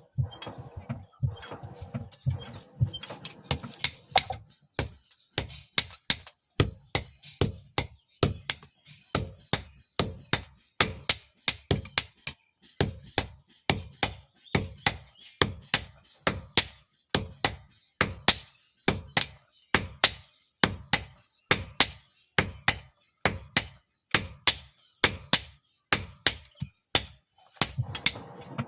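Hammer blows on steel, struck in a steady rhythm of about two a second: a file being hand-forged into a knife blade.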